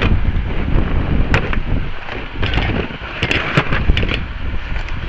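Wind rumbling on the microphone, with scattered sharp clicks and light clatter of small tools and parts being handled and put away.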